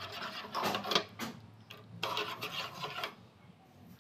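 A utensil stirring and scraping a mirror-glaze mixture of milk, cream, butter and neutral gel in a pot, in two spells: one about half a second in and another about two seconds in.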